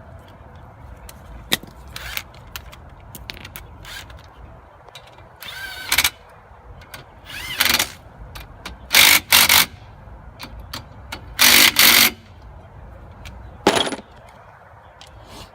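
A power tool run in about six short, loud bursts of under a second each, driving bolts during a brake job.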